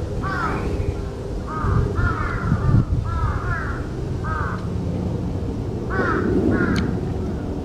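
Crow cawing: a series of short caws in twos and threes, with a pause of over a second before the last two, over a steady low rumble.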